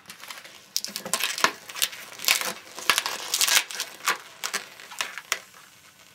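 Inflated latex twisting balloon (a black 160) being rubbed and twisted in gloved hands: an irregular run of rubbing strokes and sharp clicks as a lost pinch twist is put back in.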